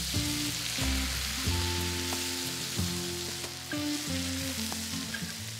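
Meatballs sizzling in hot olive oil in a frying pan, a steady hiss, as white wine is poured in to deglaze the pan. Instrumental background music plays underneath.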